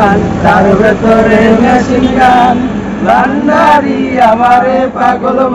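A man singing loudly, with a steady low hum underneath.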